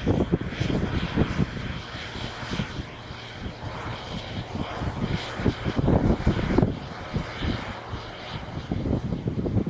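Twin-turbo V12 diesel engine of a large articulated tractor running steadily, with gusts of wind buffeting the microphone.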